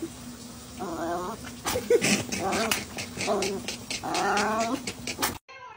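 Small terrier growling and grumbling in about five short, pitched bursts, with sharp clicks between them, as it warns off a hand reaching into the dryer drum. The sound cuts off suddenly near the end.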